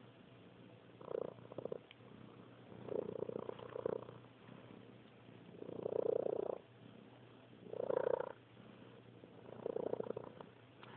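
Domestic cat purring very loudly, the purr swelling and fading with each breath about every two seconds.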